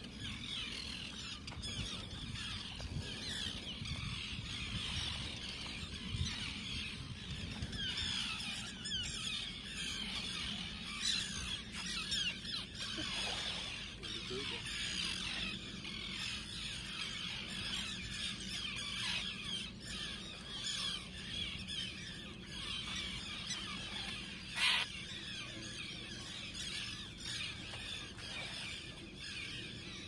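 A large flock of seabirds circling over shallow water and calling all at once, a dense, unbroken chatter of high squealing cries. There is a single sharp knock late on.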